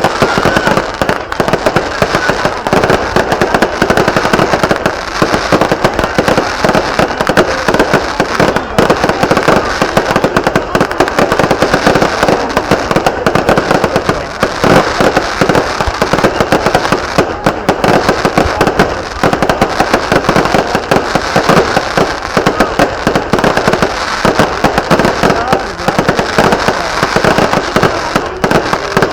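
Fireworks going off in a dense, continuous barrage: rapid overlapping bangs and crackling with no pause.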